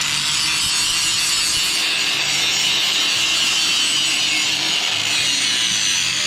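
A power tool grinding metal in one steady, unbroken run, cleaning a spot down to bare metal for the welder's ground clamp.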